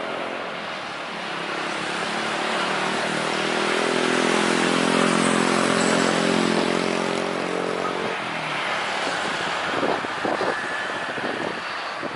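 Jet engines of a Jetstar Airbus A320 passing low on final approach: a broad roar with a humming mix of steady tones that swells to its loudest about midway, then fades as the airliner moves off toward touchdown. A few brief thumps come near the end.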